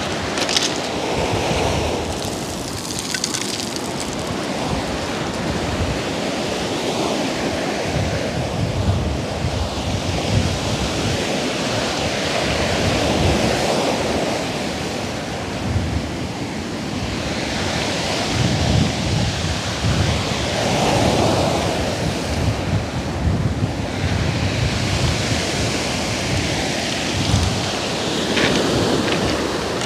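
Surf breaking and washing up a pebble beach, swelling and easing with each wave, with wind buffeting the microphone.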